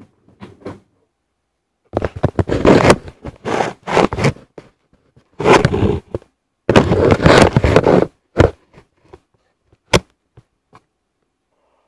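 Handling noise from the camera being moved down and set at table height: scraping, rubbing and knocking against clothing and the tabletop, loudest from about two seconds in to about eight, then a few light taps and one sharp click about ten seconds in.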